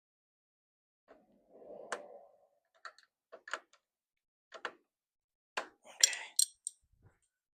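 Scattered metallic clinks and clatter of tools and metal parts being handled, with a brief rustle about two seconds in and the loudest ringing clink about six seconds in.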